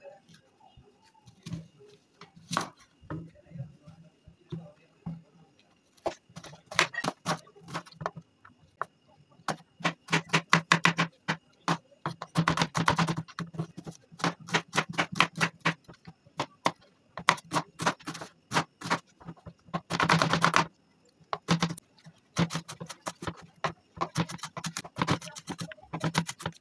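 Chef's knife cutting a red onion on a bamboo cutting board: scattered knocks at first, then runs of quick chopping strokes on the board as the onion is diced.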